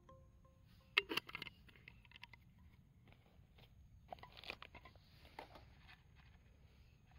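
Light clicks and scrapes of an aluminium mess tin and its wire handle being handled, in a short cluster about a second in and another about four seconds in.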